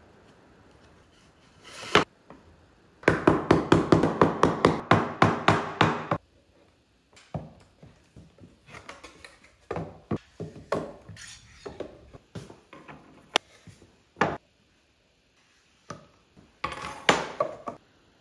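Glue-up of a small wooden box with bar clamps: a single sharp knock, then a run of quick sharp clicks or knocks at about five a second for some three seconds, followed by scattered taps and clicks of wood parts and clamps being handled, and a short run of strikes near the end.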